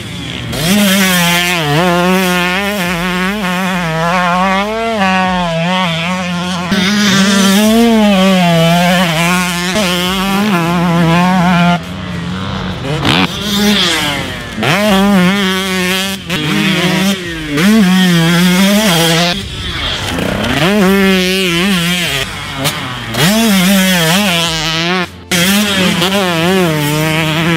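2018 Husqvarna TC125's 125cc two-stroke engine being ridden hard, its revs climbing and falling over and over as the throttle is worked.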